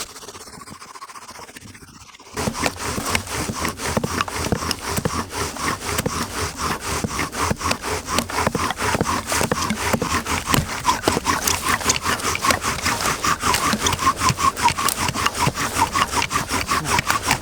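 Bow drill in use: a wooden spindle driven back and forth in a wooden hearth board by quick bow strokes, giving a rhythmic grinding rub of about three strokes a second. It starts a couple of seconds in.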